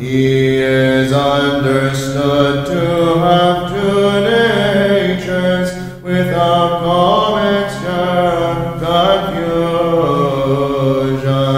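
Byzantine chant: voices sing a melody over a low drone note (the ison) held steady beneath it, with a short break about six seconds in.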